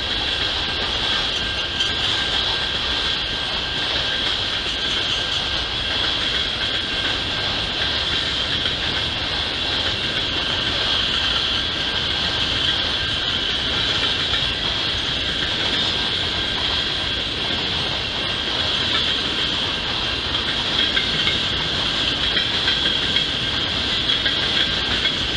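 Freight cars rolling past at a steady speed, a continuous noise of steel wheels on rail with a steady high-pitched hiss over it.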